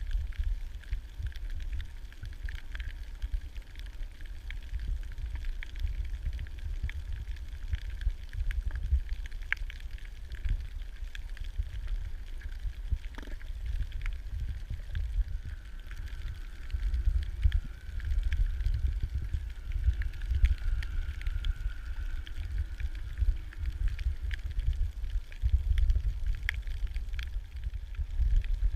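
Underwater ambience: a low, fluctuating rumble of water moving around the recorder, with many scattered faint clicks and crackles throughout.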